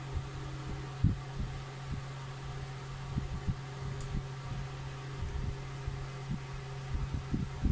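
Irregular soft low knocks and bumps from handling the plastic tip of a pressure washer lance while a small pick works at its rubber O-ring, over a steady low hum. The loudest knocks come about a second in and again near the end.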